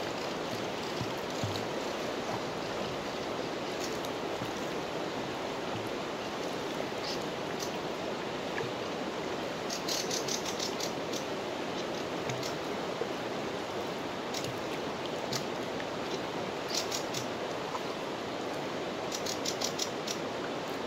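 Fast-flowing river rushing steadily, with short bursts of rapid clicking from a fly reel's ratchet about ten seconds in, again about seventeen seconds in, and near the end.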